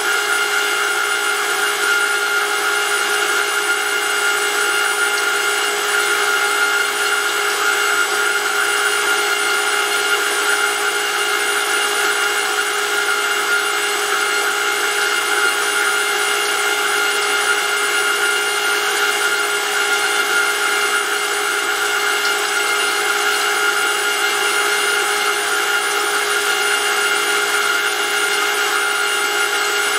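Brushless electric motor driving a gear-type oil pump on a test bench, running steadily. It makes a constant multi-tone whine over a hiss.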